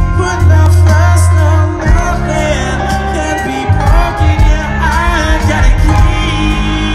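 A rock band playing live through a large arena sound system: loud bass and drums under guitars, with a voice singing over the band. The heavy low bass eases off about two seconds in.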